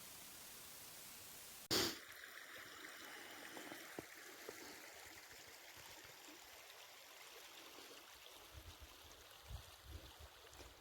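Faint steady rushing of a small river flowing, beginning after a sharp click about two seconds in, with a few soft low thumps near the end.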